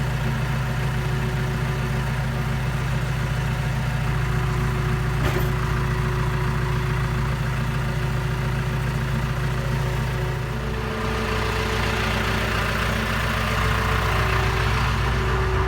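Tractor engine running steadily while towing a dead box truck. Its note shifts about ten seconds in.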